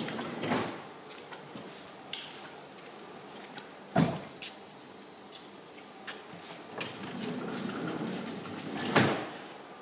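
A few sharp knocks and clicks over a faint background haze, the two loudest about four and nine seconds in.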